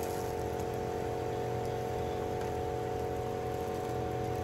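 A steady machine hum with a few fixed tones held at one pitch, unchanging throughout.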